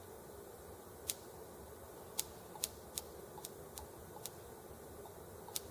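Ignition spark on an R18 model engine cracking across the plug gap: about eight sharp, irregularly spaced snaps. It shows that the replacement ignition module, with its hall sensor fitted right side up, is now firing.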